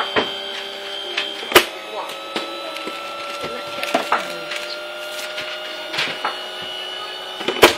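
Cricket bowling machine humming steadily, its pitch creeping slightly upward, with sharp wooden knocks of bat and ball every second or two; the loudest knock comes about a second and a half in.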